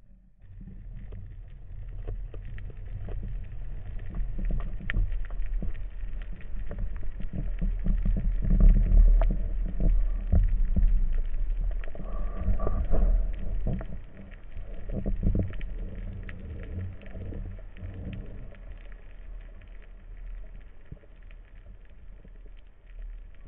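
Underwater sound picked up by a diving camera: a low rush of water moving against the housing, with many small scattered clicks and crackles. It swells to its loudest about a third of the way in, then eases off.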